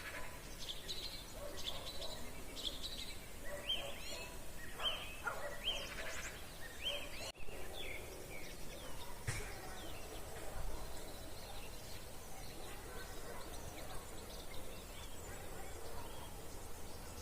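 Several wild birds singing together in an evening chorus: quick repeated chirps and trills, busiest in the first half and thinning out after a brief break about seven seconds in.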